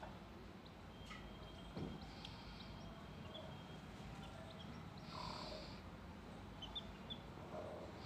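An Aseel mother hen giving faint, scattered calls, with several short high chirps.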